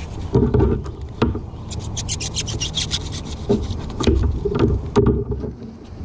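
Gear being handled on a plastic kayak deck: scattered knocks and clunks, and a run of rapid scratchy ticks about two seconds in.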